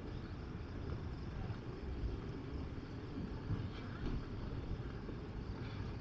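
Steady low rumbling background noise outdoors, with no distinct events.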